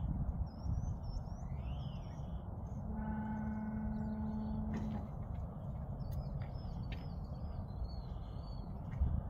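Small birds chirping over a steady low rumble, with a steady hum for about two seconds near the middle.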